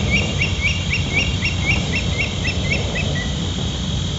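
Indian stone-curlew calling: a rapid series of short, shrill whistled notes, each rising then falling, at about four a second. The series slows and fades out about three seconds in, ending on a lower note, over a steady high hum.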